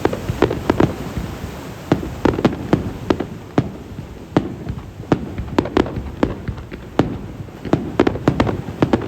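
Fireworks display: shells bursting in quick, irregular succession, several sharp bangs a second over a continuous low rumble.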